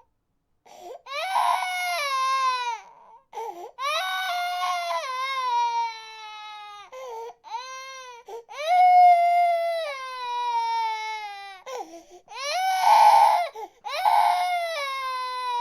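Baby crying: a string of long wailing cries, each sliding down in pitch, with short catches of breath between them.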